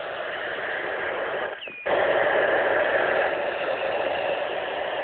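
FM static hissing from an amateur radio transceiver's speaker while a call to the balloon repeater goes unanswered. About a second and a half in the hiss cuts out briefly with a short high beep, then resumes a little louder.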